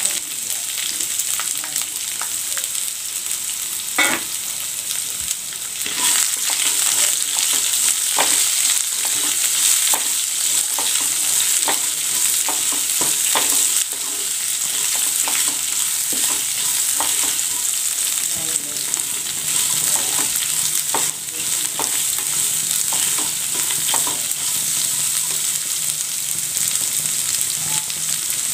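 Chopped shallots sizzling in hot oil in a non-stick kadai, with a flat spatula scraping and stirring them and many small crackles through the hiss. The sizzle gets a little louder about six seconds in.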